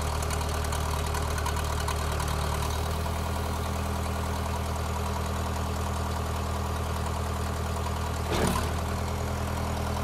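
Case 580E backhoe's diesel engine idling steadily, with one short clunk a little past eight seconds in.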